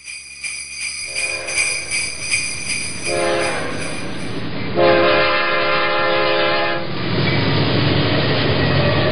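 A diesel locomotive's multi-note air horn sounds three long blasts over a warning bell struck rapidly, about three strokes a second. The bell stops about halfway through, and after the last blast the loud rumble of the passing train takes over.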